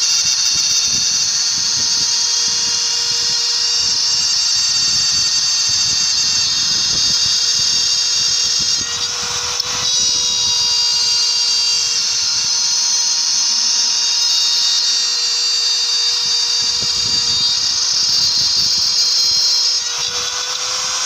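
CNC router running, its trim-router spindle giving a loud, steady high-pitched whine. The whine breaks briefly about nine seconds in and drops in level near the end.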